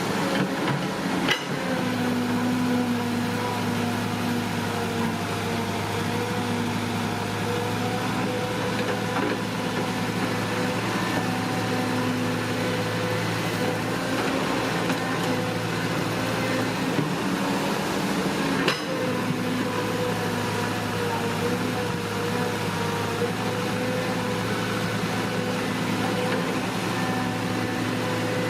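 Radio-controlled Huina toy excavator's electric motors and gearboxes whining steadily as it works, the pitch wavering slightly with the moves, with a sharp click about a second in and another knock near two-thirds of the way through.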